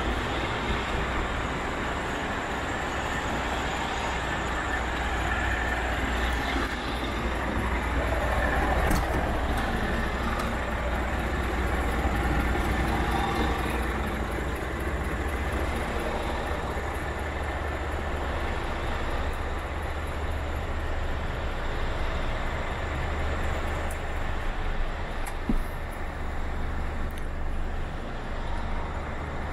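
Scania R440 tractor unit's inline-six diesel engine idling steadily, a constant low drone, with a few light knocks of the camera being handled as it moves into the cab.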